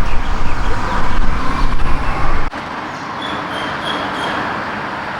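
Outdoor road-traffic noise with a heavy low rumble that cuts off abruptly about halfway through, leaving a lighter steady hiss. A few short high chirps follow soon after the cut.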